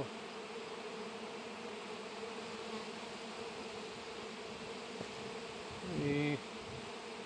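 Honeybees buzzing around open hives: a steady hum of many flying bees.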